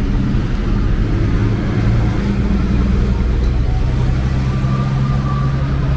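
City street traffic: a motor vehicle's engine running close by with a steady low hum over a rumble of road noise.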